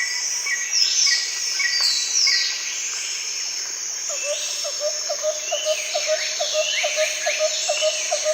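A chorus of several birds calling and chirping, many of the calls short falling whistles. From about halfway a lower call repeats quickly, about three times a second.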